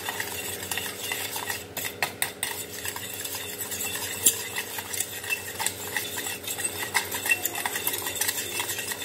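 A metal spoon stirring milk and sugar in a plate, a steady run of small clinks and scrapes against the plate as the sugar is mixed in.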